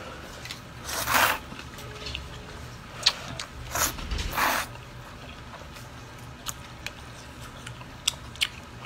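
Noodles slurped from a bowl of soup: four short sucking slurps in the first half, then quieter chewing with a few faint clicks.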